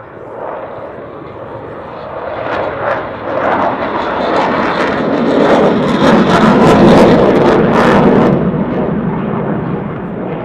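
Su-27 fighter's twin turbofan jet engines during a low display pass. The noise builds to its loudest about six to eight seconds in, crackling near its height, then eases off.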